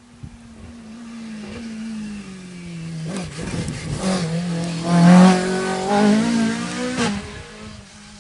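Rally car coming up the stage and passing close at speed, engine revving hard. The engine note climbs and drops through gear changes, is loudest about five seconds in as the car goes by, then fades away.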